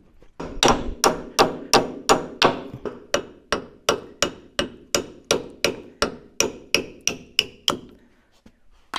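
Steady run of about twenty hammer blows on steel, about three a second, at the rusted axle spindle by the wheel seal of a Bobcat S250 skid steer; the later blows ring, and they stop shortly before the end.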